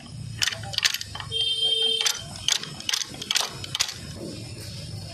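Metal clinks and knocks of a pipe wrench working on a rotavator's oily chain-drive sprocket, over a steady low hum. A short steady beep-like tone sounds for under a second about a second and a half in.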